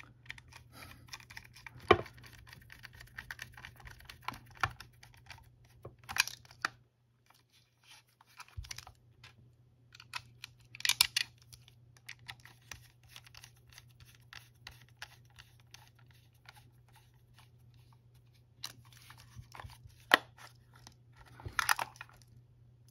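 Plastic case of an imitation power-tool battery being handled and pushed together: scattered small clicks, scrapes and taps, with a few sharper clicks as the tight-fitting housing is pressed into place. The sound drops out briefly about seven seconds in.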